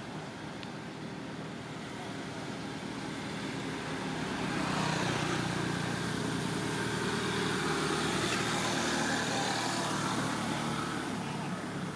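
A passing motor vehicle's engine, growing louder from about four seconds in and easing off near the end.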